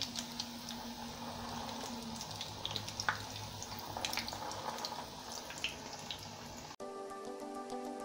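Egg-dipped shami kababs shallow-frying in oil on a medium-low flame: a steady sizzle with scattered small pops and crackles. About seven seconds in it cuts off suddenly to background music with held notes.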